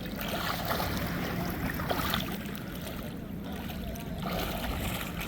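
Seawater sloshing and lapping around people standing in the shallows, with a steady low rumble underneath.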